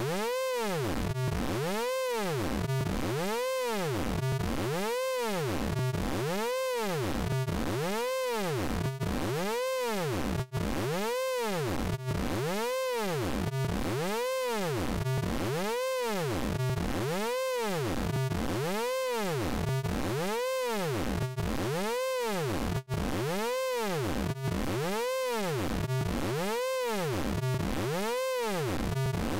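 Synthesized electronic sound effect from the Orange Vocoder plugin: a tone with several overtones that swoops up and back down in pitch, repeating steadily about once every 0.8 seconds.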